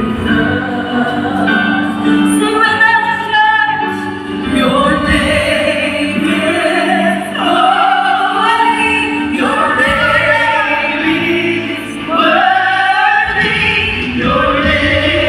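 Choir singing a slow piece of sacred music, long held notes over an instrumental accompaniment.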